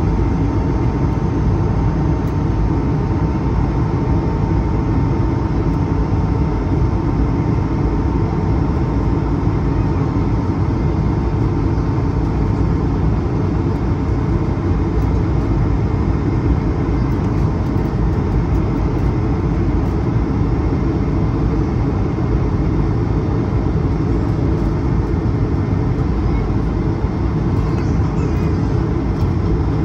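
Steady in-flight cabin noise of an Airbus A220-300: a deep, even rush of air and engine noise, with a faint steady whine above it.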